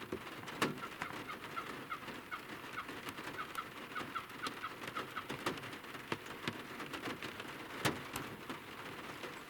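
A bird calling: a quick series of about a dozen short, evenly spaced notes, about four a second, lasting about three seconds. Scattered sharp ticks of rain drops land throughout.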